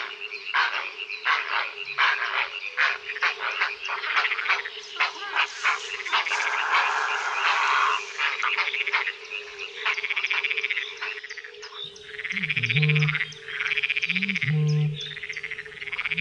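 Frogs croaking in a night chorus at a pond: a dense run of quick clicking croaks over a steady low drone, then from about twelve seconds in, louder croaks repeating roughly every two seconds.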